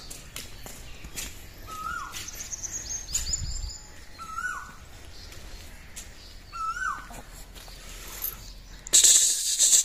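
Birds chirping, with a short call that rises then drops, heard four times about every two and a half seconds. A loud burst of rustling noise comes in near the end.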